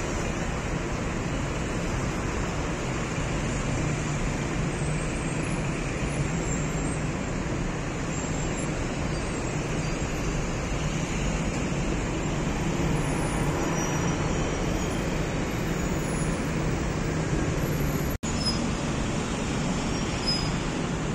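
Steady traffic noise from a busy multi-lane expressway, the combined sound of many cars' engines and tyres. It drops out for an instant about 18 seconds in.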